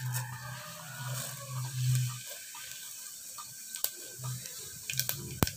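Cumin seeds sizzling in hot oil in an aluminium pressure cooker, with a few sharp pops in the second half.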